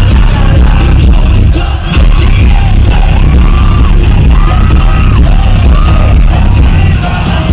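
Live K-pop song played loud over a concert PA, heavy in the bass, with sung notes held and sliding above the band.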